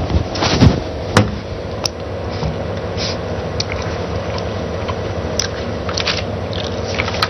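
Steady background hiss with a low hum, broken by a few sharp clicks and small knocks.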